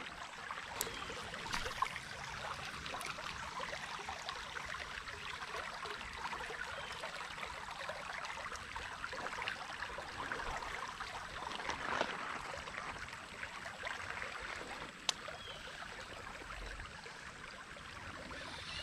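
Steady hiss of running creek water, with a few soft clicks.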